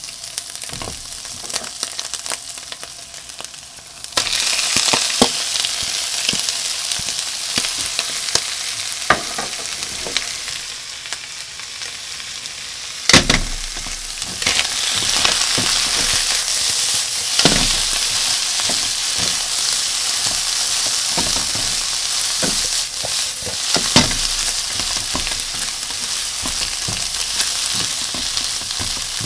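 Canned mackerel and sliced onion sizzling in oil in a nonstick frying pan, stirred with a spatula that knocks and scrapes on the pan. A sharp knock comes about halfway, as the onion is in the pan, and the sizzling is louder after it over medium-high heat.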